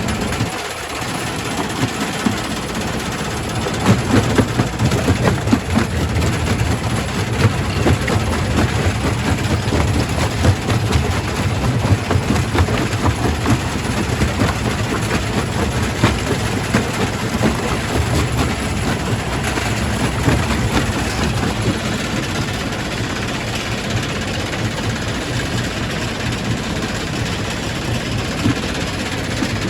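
Quarry primary rock crusher running, with a steady heavy rumble under a constant clatter of rocks knocking and cracking as stone is crushed.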